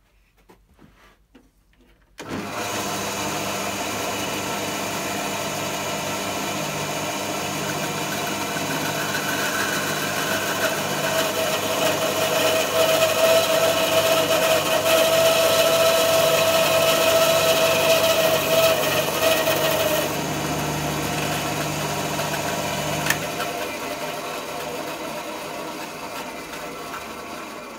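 Rexon BS10SA bandsaw switched on about two seconds in and running, cutting a half-inch slice off an ash log with a coarse blade; the sound is loudest with a steady ringing tone while the blade is in the wood. About 23 seconds in a click comes and the motor hum stops, and the saw runs down.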